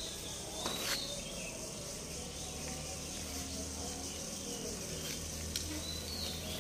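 Quiet outdoor background: a steady high-pitched insect chirring, with a few faint short chirps and a low steady hum that comes in about two seconds in.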